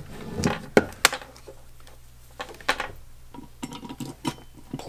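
Irregular light clicks and taps of a small electric motor's housing and parts being handled on a workbench, about a dozen spread over the few seconds.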